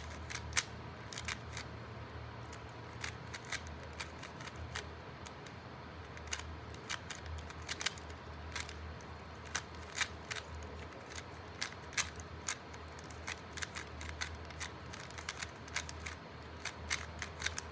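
Plastic 3x3 Rubik's Cube clicking as its layers are turned one-handed in quick, uneven bursts of turns, over a faint low hum.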